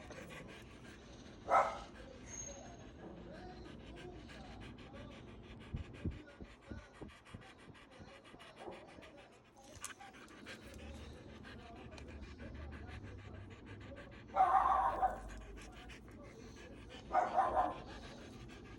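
A husky panting rapidly throughout, with three short, louder vocal outbursts: one about a second and a half in, and two close together near the end.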